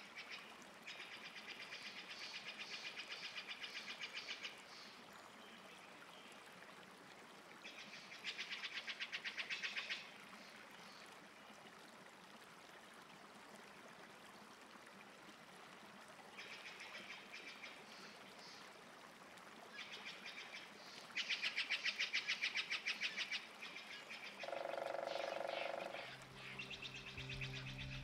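Rapid pulsed animal trills in bouts of one to three seconds, separated by quieter pauses. A lower held call sounds near the end, and guitar music starts right at the close.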